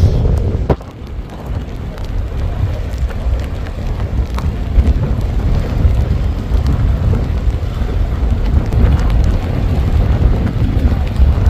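Strong wind buffeting the microphone: a loud, gusting low rumble, with a single sharp click under a second in.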